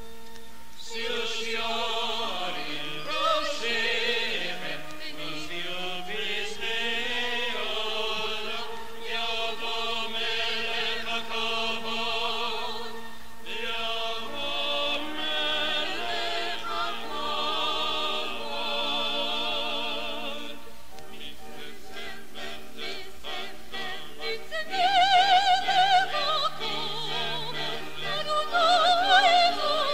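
A cantor chanting Hebrew liturgy for returning the Torah to the ark: one solo voice in long, sliding melismatic phrases with wide vibrato over a steady held lower note. The singing grows louder about five seconds before the end.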